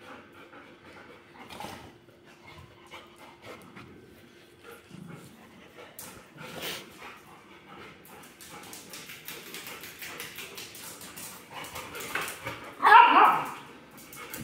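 Golden retrievers moving about on a tiled floor, with light ticks of claws on the tiles, and a dog giving a short, loud whimper near the end.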